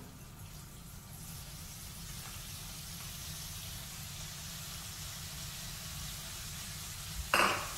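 Hot oil frying in a pan on a gas stove, a steady sizzle that grows a little louder, with a sudden loud burst near the end.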